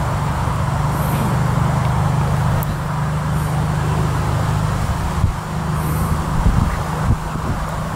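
Steady low mechanical hum, like a running motor or engine, with no speech.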